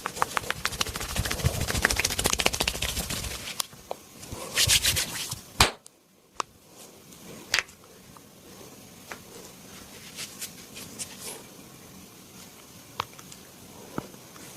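A massage: hands rubbing vigorously with a dense crackling rub for about the first three and a half seconds, then a short burst of rubbing a little after four seconds. The rest is quieter, with a handful of separate sharp clicks.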